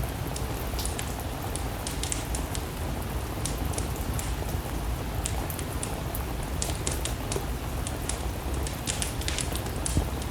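Steady rain together with a wood fire crackling: a continuous hiss and low rumble with many sharp pops and ticks scattered throughout.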